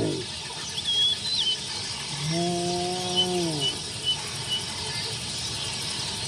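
Dawn bush ambience: a steady hum of insects with a few short bird chirps, and about two seconds in a single low, drawn-out animal call, held level for over a second and then falling away.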